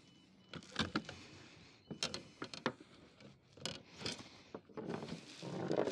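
Small clicks, knocks and rubbing of gear being handled: several sharp clicks a second or so apart, then a longer rubbing sound near the end.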